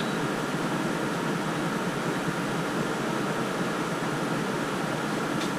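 A fan running with a steady, even hiss, and a faint tick near the end.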